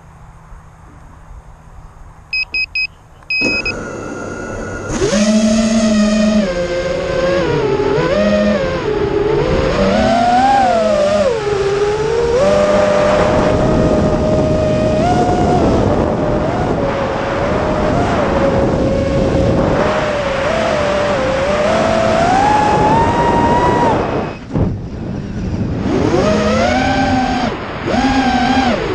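An FPV racing quadcopter's brushless motors and propellers, heard from on board. A few short electronic beeps come first, then the motors spin up and the quad flies, its whine rising and falling in pitch with the throttle. About 24 seconds in the motors cut out for a moment, then throttle back up.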